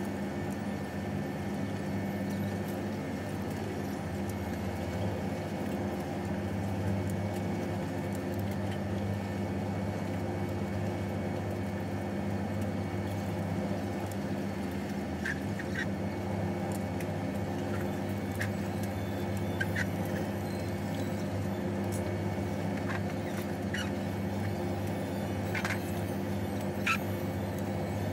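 Steady low drone of a ferry's engines heard inside a passenger cabin, with a few light clicks of chopsticks and tableware on plates in the second half.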